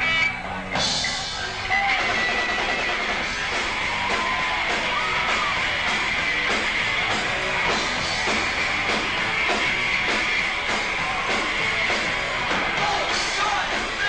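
Live rock band, electric guitar and drums, crashing in about a second in and then playing on at a steady beat.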